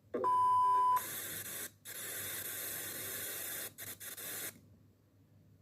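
A loud electronic beep, one steady tone held for just under a second, then a burst of static hiss lasting about three and a half seconds with two brief breaks, cutting off suddenly. This is the broadcast-interruption opening of a mock Emergency Alert System alert.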